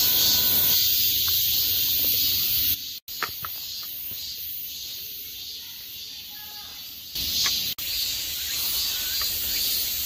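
Steady high-pitched hiss of outdoor forest ambience, with a few faint short chirps; it drops in level about three seconds in and comes back up about seven seconds in.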